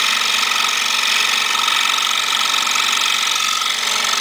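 Excalibur scroll saw running steadily, its fine number 2 blade cutting through half-inch maple.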